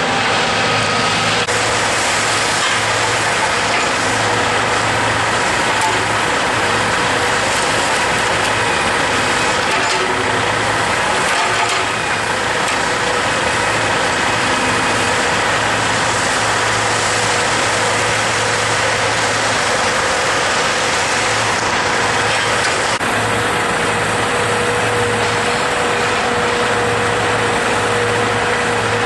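Log truck's diesel engine running steadily, under a constant hiss of road and running noise. A hum in it grows a little stronger near the end.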